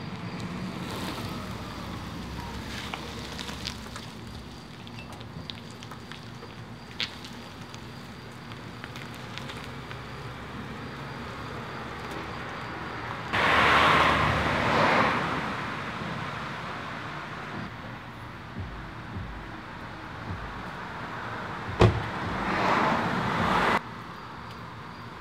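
Street sound of cars on a rain-wet road: a steady low hum with faint clicks, then two louder stretches of tyre hiss, one about halfway through and one near the end, the second cut off suddenly. A single sharp knock comes just before the second stretch.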